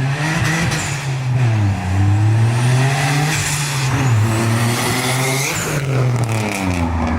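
Turbocharged car engine revved repeatedly in neutral, about three blips. On each climb the turbo whistles up in pitch, and each time the throttle shuts the HKS blow-off valve vents boost with a hissing whoosh. The car is running 5 psi of boost.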